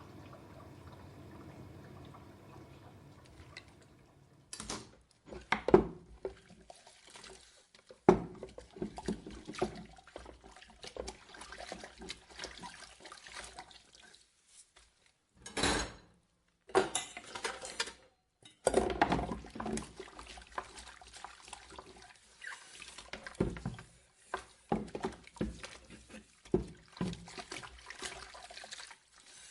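Dishwasher cycle: a steady low hum for the first few seconds, then irregular sloshing and splashing of water with sharp clatters of dishes.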